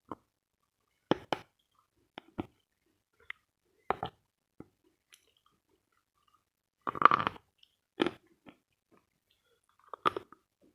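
Dry, dense edible chalk being bitten and chewed: a series of short, sharp crunches at irregular intervals, the longest and loudest a little past the middle.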